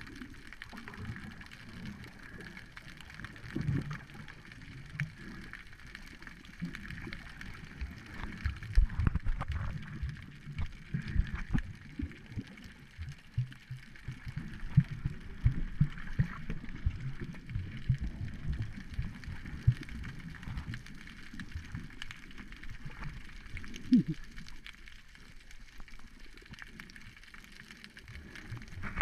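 Muffled underwater sound through a GoPro's waterproof housing: churning water with frequent irregular low thumps and knocks, thickest through the middle and with one sharper knock near the end.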